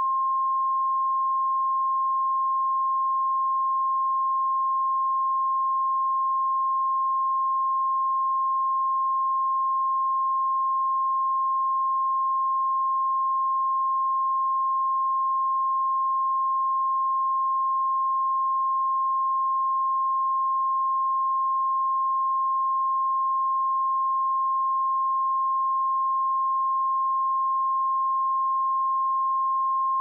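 A pure 1062 Hz sine-wave test tone, held steady at one pitch and level with no change.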